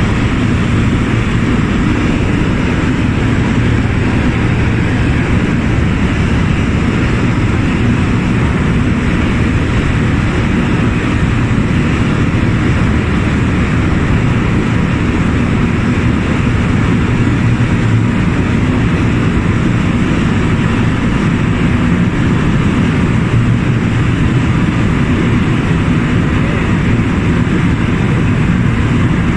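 A boat under way at speed: its engine runs steadily with the rush of water from its wake, a constant, unbroken noise.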